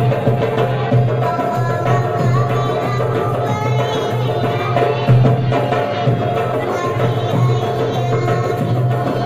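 Marawis ensemble playing: goblet drums (dumbuk) and larger hand drums beating a steady rhythm, with a voice singing along over a microphone.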